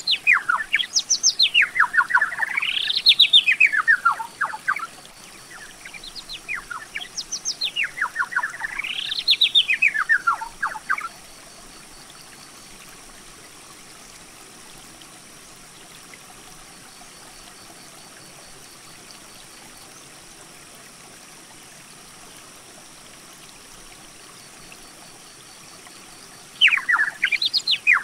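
A songbird singing: long phrases of rapid notes that swoop up and down in pitch, two phrases back to back at the start and another starting near the end, with a steady faint hiss in the gaps.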